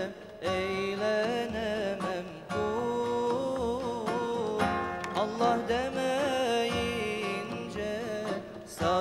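A choir singing an ilahi, a Turkish-language Islamic devotional hymn, in an ornamented, wavering melody with instruments accompanying.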